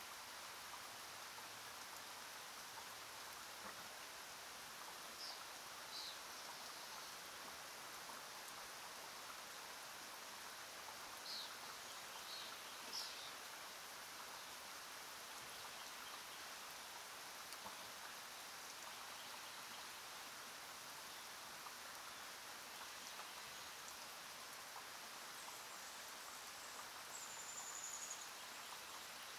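Pencil lead scratching across notebook paper while writing, a faint, steady, grainy hiss. A few faint high chirps sound over it.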